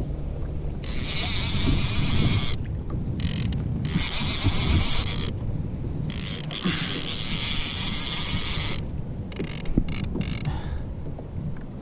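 Fishing reel being cranked in spells of one to three seconds with short pauses, its gears whirring as line is wound in on a hooked fish that feels heavier than a dogfish.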